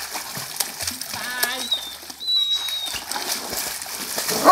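Water splashing and slapping as a German shepherd paddles and thrashes in a pool. A brief high-pitched cry comes about a second in.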